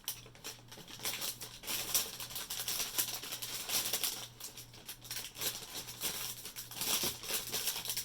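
Packaging being handled and unwrapped: continuous irregular crinkling and rustling.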